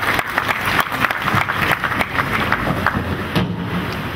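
Audience applauding, dense irregular hand claps.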